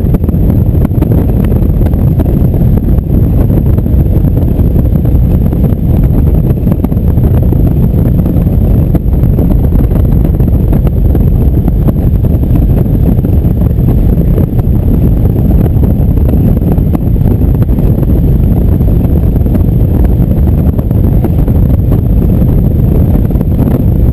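Cruiser motorcycle running at road speed, with steady wind buffeting on the microphone over the engine.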